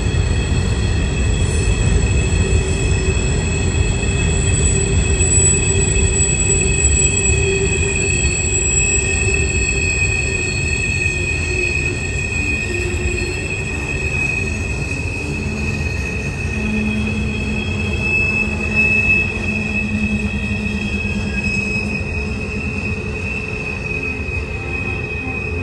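A train rolling through a tight curve with a steady low rumble, its wheel flanges squealing in several high, held tones that run throughout.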